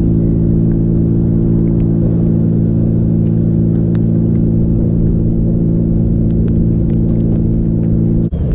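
Steady low mechanical hum made of several level tones over a rumble, cutting off abruptly near the end.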